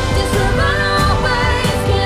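Pop song playing: a sung melody over a steady beat.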